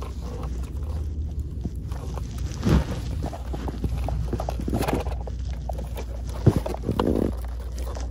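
Handling noises from a plastic toy bus in its cardboard box: a few short knocks and a brief scrape as it is tilted and moved. Under them runs a steady low rumble inside the car.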